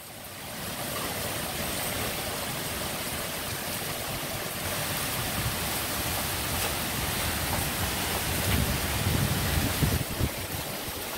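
Heavy rain pouring down in strong, gusty wind from a passing small tornado, a steady rush of water noise. About eight seconds in, gusts buffet the microphone with low rumbles.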